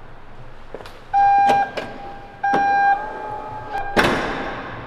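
SUV power tailgate closing: two warning beeps about a second apart, a faint tone while it lowers, then a loud thump as it shuts about four seconds in.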